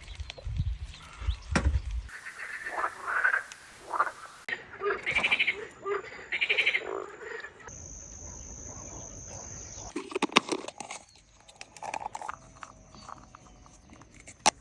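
Frogs croaking in rapidly pulsed calls, in short cut-together clips. A steady high-pitched tone comes in for a couple of seconds in the middle, followed by scattered clicks.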